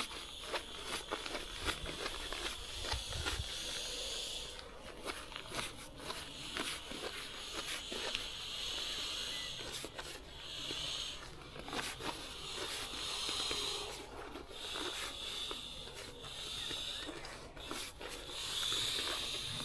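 Air hissing out through the open valve of a self-inflating sleeping mat in several spurts as it is rolled up and pressed down to deflate it, with rustling of the mat's fabric.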